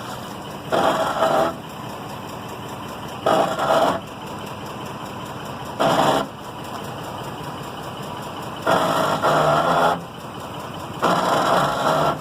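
Rear end of a 2005 Ford F-150 grinding in five bursts, one roughly every two and a half seconds, each lasting about a second, over a steady hum. The grind comes only when the truck moves forward with its weight on the wheels, and not with the truck jacked up.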